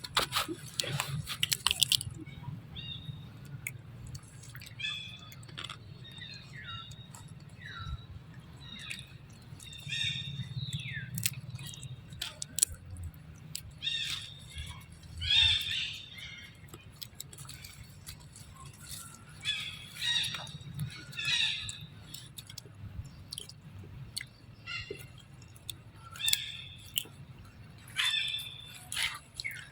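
A baby monkey's short, high squeaks, quick falling chirps that come in little clusters every second or two, with a few sharp clicks mixed in.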